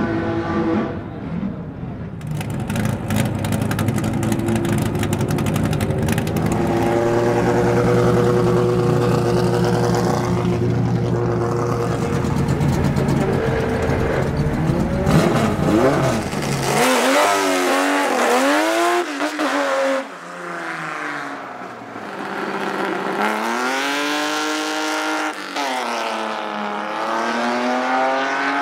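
Drag-race car engines running: a steady, deep engine note for much of the time, then repeated throttle blips in which the pitch rises and falls with each rev.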